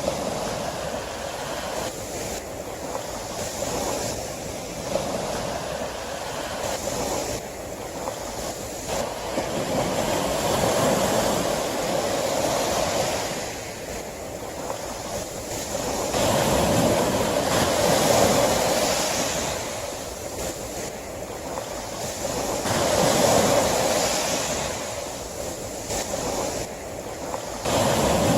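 Sea waves washing ashore: a steady surf noise that swells and ebbs, with big surges every five to seven seconds.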